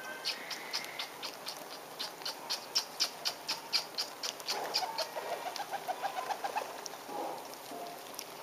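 A flock of fancy pigeons feeding on scattered grain. For about the first four seconds there is a regular run of sharp high ticks, about five a second. Then, around the middle, comes a quicker string of lower notes.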